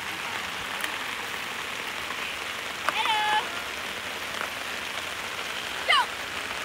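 Steady hiss of rain falling on the campsite at night. Two brief pitched calls cut through it, a short held one about three seconds in and a quick sliding one near six seconds.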